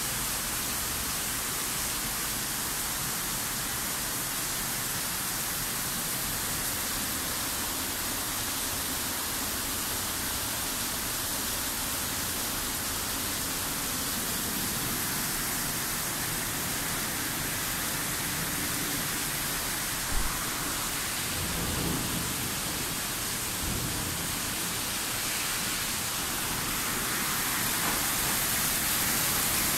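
Heavy rain pouring down, a steady hiss heard from indoors that grows louder near the end. About two-thirds of the way in there is a sharp knock, followed by a short low rumble.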